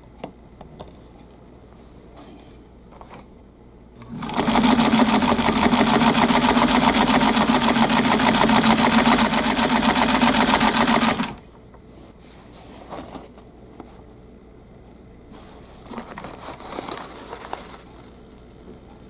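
Kenmore 117.552 rotary sewing machine running at full speed for about seven seconds with a fast, even stitch rhythm, starting about four seconds in and stopping abruptly. It is a test seam sewn after the upper thread tension was loosened. Faint handling rustles follow.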